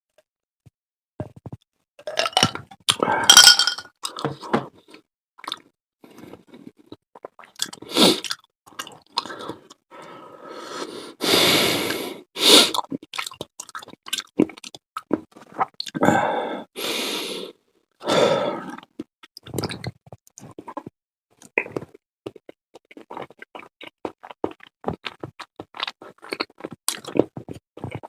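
Close-miked eating of curry udon: several long slurps and wet chewing, then a run of quick small wet clicks of chewing near the end.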